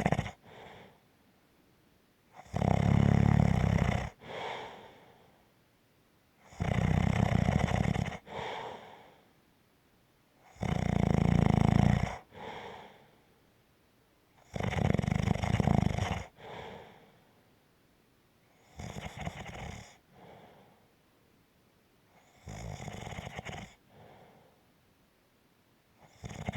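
Light, rumbling snoring: a low snore on each breath in, about every four seconds, each followed by a short, softer breath out. The last two snores are weaker than the first four.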